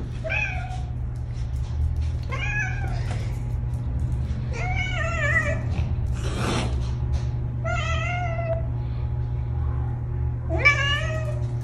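Domestic cat meowing five times, each call drawn out with a wavering pitch, while wrestling with a puppy. About halfway through there is a short hiss-like rush of noise.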